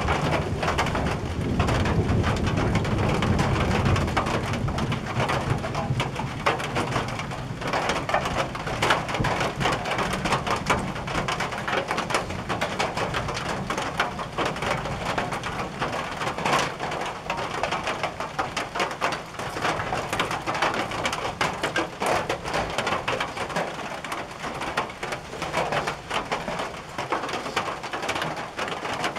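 Rain falling on a tin roof: a dense, steady patter of drops striking the metal. A low rumble of distant thunder sits under it for the first few seconds, then fades.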